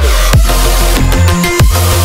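Electronic background music with a heavy, sustained bass line and hard drum hits.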